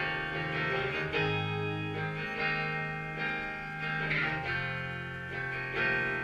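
Rock band playing live: electric guitar ringing out chords that change about once a second, over sustained bass guitar notes.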